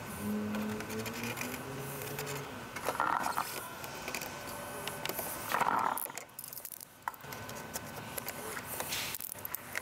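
Quiet rustling, rubbing and small clicks as black vinyl wrap film is pressed and smoothed by hand onto the chrome grille trim strip, with two short louder rustles about three and six seconds in.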